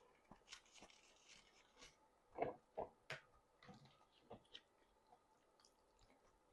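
Faint mouth sounds of eating: soft chewing with scattered wet clicks and lip smacks, a few louder smacks a little before the middle.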